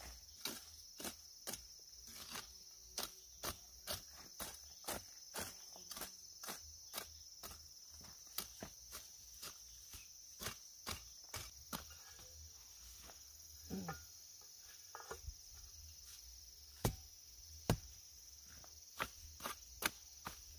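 A hand hoe chopping into the soil and weeds between peanut plants in sharp strokes, about two a second, turning slower and more scattered after about twelve seconds. A steady high insect drone runs behind.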